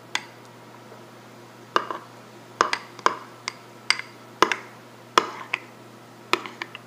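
A metal spoon clinking against a small glass bowl while stirring yogurt into a thick beet purée: about a dozen sharp clinks at irregular intervals.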